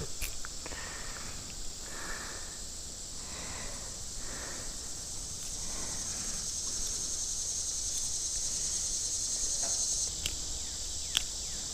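Insects chirring in a steady high-pitched drone that swells, then drops off sharply about ten seconds in.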